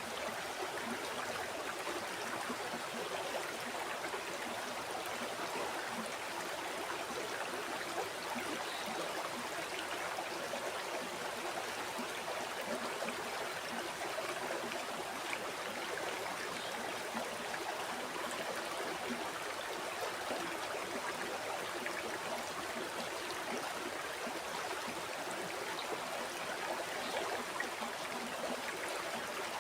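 River water flowing and babbling steadily over rocks, a continuous even rush with small splashy trickles.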